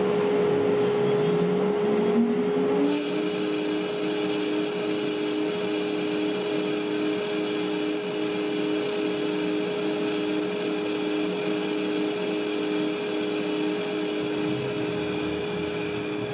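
DWC5100 CNC router running: the spindle gives a steady high whine, while a second motor tone rises over the first three seconds and then settles into an even pulsing hum, with the machine noise stepping up as it does.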